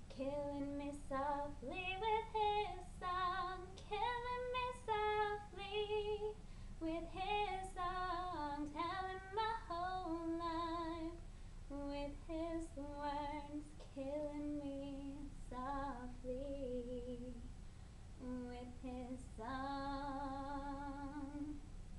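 A woman singing a cappella with vibrato, moving through quick runs of notes and ending on a long held note.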